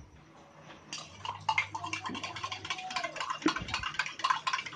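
A metal spoon stirring a drink in a steel tumbler, clinking and scraping against the sides in a quick, irregular run of clicks that starts about a second in.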